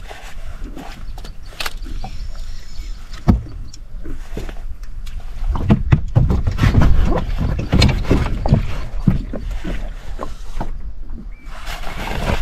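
Knocks and thumps of a rod and gear being handled in a small boat while a fish is played, over a steady low rumble; the knocks come thickest in the middle.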